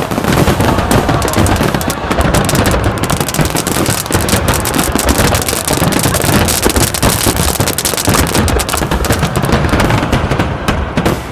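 Fireworks going off in a dense, continuous barrage of crackling pops and bangs, with no pause.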